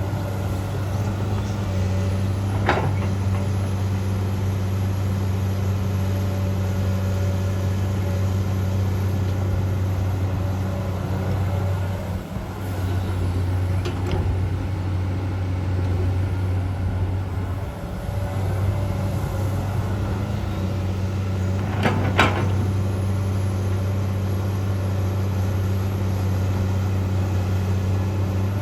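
Komatsu PC200-8 excavator's diesel engine running steadily under work, with a few sharp knocks from the machine: one about three seconds in, a fainter one midway, and two close together near the end.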